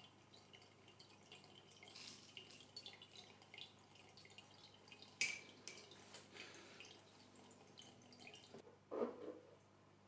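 Faint dripping water: many small drips, with a sharp click about five seconds in and a dull knock near nine seconds, after which the dripping stops.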